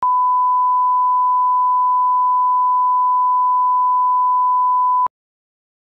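Steady 1 kHz line-up test tone, the reference tone played with SMPTE colour bars, cutting off suddenly with a click about five seconds in.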